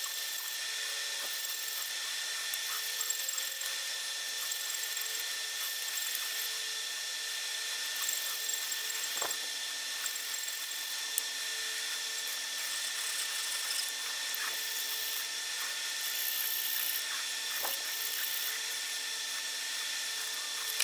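Steel flat-blade screwdriver tip being rubbed back and forth on abrasive paper to dress the blade, a scratchy rasp over a steady high-pitched whine, with two light knocks.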